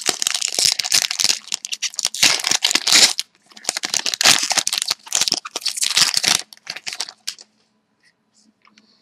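Hockey card pack wrapper being torn open and crinkled by hand, a dense crackling that comes in three stretches and stops about seven seconds in.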